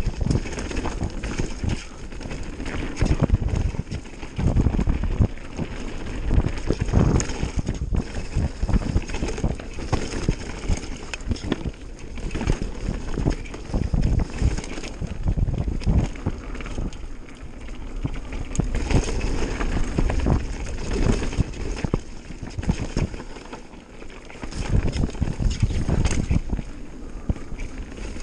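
Mountain bike descending a rough dirt trail: tyres crunching over dirt and stones, and the bike rattling and knocking over bumps, with wind buffeting the microphone.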